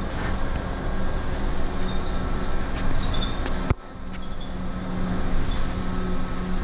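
Cabin noise of a Scania electric city bus on the move: a steady rumble of road and tyre noise with a low hum and faint high squeaks from the interior fittings. A sharp knock a little past halfway, then the noise dips briefly.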